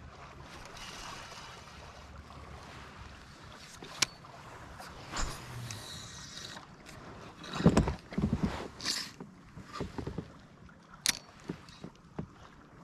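Small knocks and clicks as a spinning rod and reel are handled aboard a plastic fishing kayak, with the loudest cluster of bumps about eight seconds in, over a light steady background hiss.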